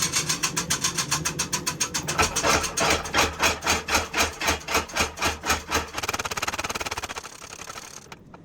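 Power hammer pounding hot steel bar stock in a rapid, even run of heavy blows, breaking the bar down; near the end the blows turn lighter and quicker, then stop.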